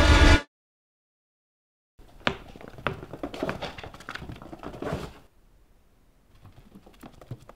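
Loud, tense horror-film score cuts off abruptly, leaving dead silence. About two seconds in, a quieter run of sharp taps and light knocks starts, with irregular spacing, then gives way near the end to fainter scattered ticks.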